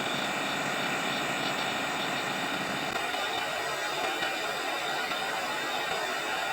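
Gas torch flame hissing steadily while heating a fluxed joint to solder a cross onto a stainless steel bracelet.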